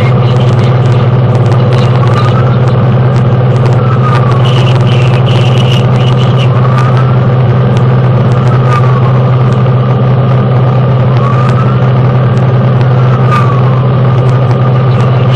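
Fire engine responding, heard from inside the cab: a loud, steady engine and road drone, with the truck's wailing siren rising and falling more faintly behind it about every four to five seconds, and scattered small rattles.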